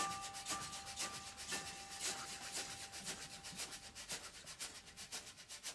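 Rhythmic percussion of quick shaking or scraping strokes, like a shaker, slowly fading out, with a faint held note dying away in the first few seconds.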